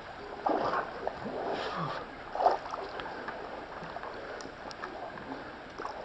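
Water splashing and sloshing from swimming strokes in a still pool, in irregular bursts, with the loudest splash about two and a half seconds in.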